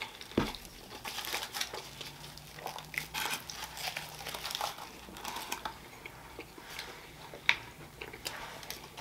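Aluminium foil crinkling and rustling irregularly in the hands around a foil-wrapped gyro as it is gripped and bitten into, with a sharp click about half a second in and another near the end.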